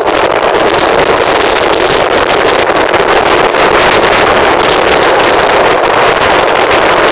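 Strong gale-force wind blowing across the deck of a ship at anchor, buffeting the microphone in a loud, steady rush with quick flutters.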